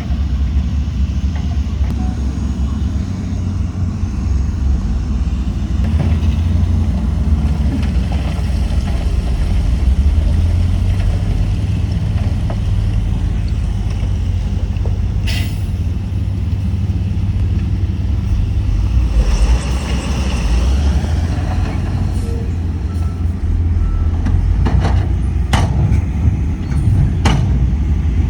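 Heavy diesel earthmoving machinery running with a steady low rumble. A hiss rises for a couple of seconds after the middle, and a few sharp knocks come near the end.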